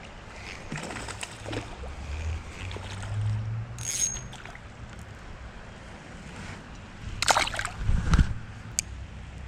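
Water splashing and sloshing as a hooked trout is brought in, with two louder splashes near the end.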